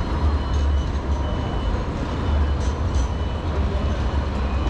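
City street traffic: a steady low rumble of passing vehicles, with a few faint high-pitched tones and light ticks above it.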